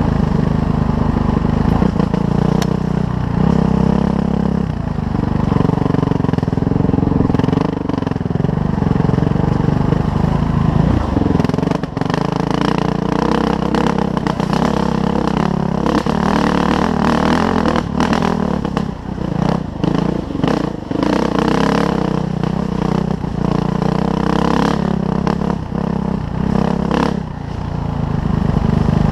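Suzuki RM-Z450 single-cylinder four-stroke dirt bike engine revving up and down under riding, with frequent clattering knocks from the bike.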